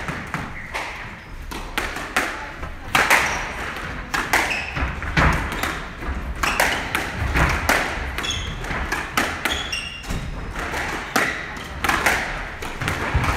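Squash rally: the ball cracking off rackets and thudding off the court walls at irregular intervals, about one hit a second, with shoes squeaking on the wooden floor.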